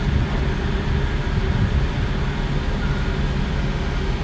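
Heavy diesel earthmoving machinery running steadily with a deep, even rumble, heard from inside a machine's cab while a Komatsu WA600 wheel loader works a boulder pile.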